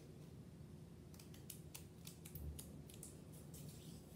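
Faint light clicks and ticks of small objects handled in the fingers, scattered irregularly from about a second in, over a low steady room hum.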